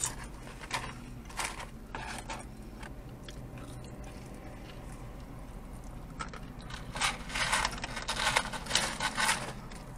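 Close-up eating sounds: crunching and chewing of fried fast food, with a few scattered crunches early on and a denser run of crunching from about seven seconds in. A low steady hum lies underneath.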